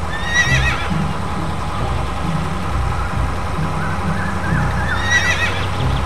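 Horse whinny, twice: once about half a second in and again near five seconds, each a wavering high call. Under both runs a steady low rumble.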